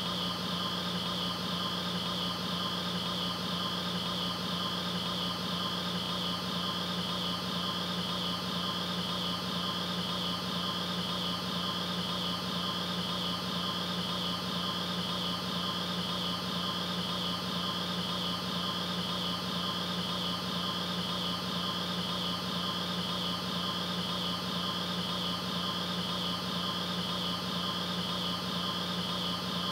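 A steady, unchanging hum with a high whine and hiss over it.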